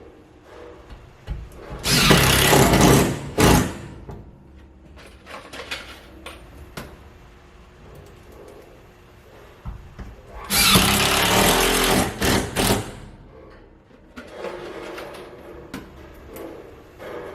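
Cordless drill driving drywall screws into wood framing: a run of about a second near the start, a short burst right after, and a longer run of about two seconds around the middle, with quieter clicks and handling between.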